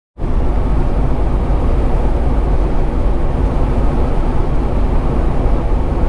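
Steady cab noise of a semi truck cruising down a highway: a low engine and road rumble that cuts in suddenly right at the start.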